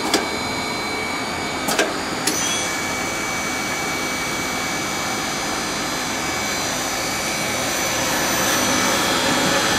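Hanwha ML12 CNC Swiss-type lathe running in continuous cycle, its spindle turning at 5,000 RPM: a steady whir with faint high whines. Two sharp clicks come about two seconds in, and the sound grows slightly louder near the end.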